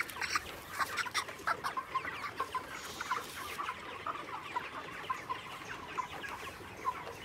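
A large flock of broiler chickens calling in their shed: many short, overlapping high peeps and clucks that never stop.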